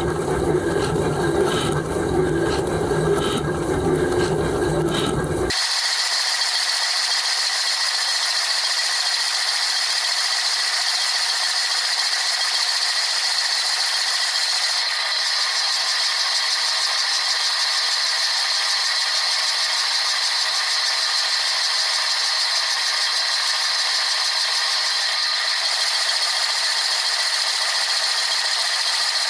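Dishwasher running, water spraying and rattling steadily. About five seconds in, the deep churning sound cuts off abruptly, leaving a steady, thin, high rattling hiss.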